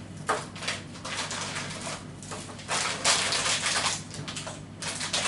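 Crinkling and crunching of a snack of almond-filled chocolate eggs close to the microphone, in several short bursts, the longest about three seconds in.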